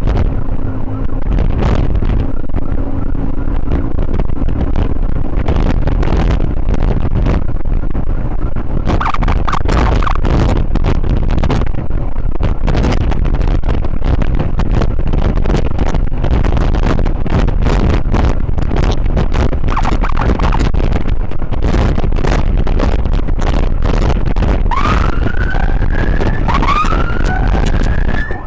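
Heavy wind and road rumble from a moving motorcycle, with an ambulance siren in the mix. Near the end the siren comes through clearly as repeated rising sweeps, about one a second.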